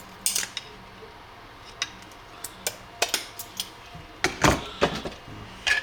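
Metal hand tool clicking and scraping against a printed plastic airsoft lower receiver as support scaffolding is pried and snapped off. Scattered sharp clicks, then a denser run of heavier cracks and scrapes about four to five seconds in.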